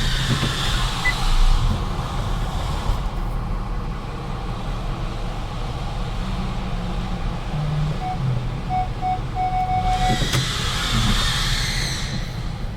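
A car driving, with a steady low engine and road rumble. Tyre and traffic hiss swells up at the start and again about ten seconds in, as other vehicles pass.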